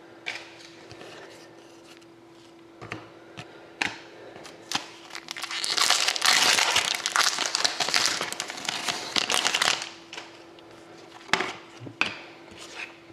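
Foil wrapper of a pack of hockey trading cards being torn open and crinkled for about four seconds in the middle, with light taps and clicks of cards being handled before and after. A faint steady hum runs underneath.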